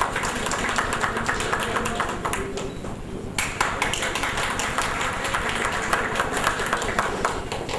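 Audience applauding: many hands clapping, easing off briefly about three seconds in and then picking up again.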